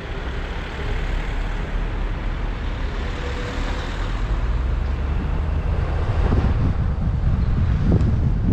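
A car driving, heard from the car: steady engine and road noise with a low rumble that grows heavier about six seconds in.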